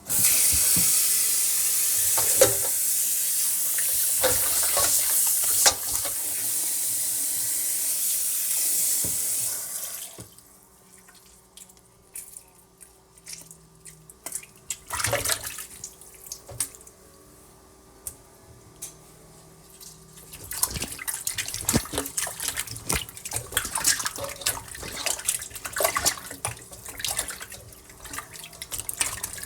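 Tap water running hard into a sink for about ten seconds, then shut off suddenly. Scattered knocks and clicks follow, then a busier stretch of splashing and knocking in the sink.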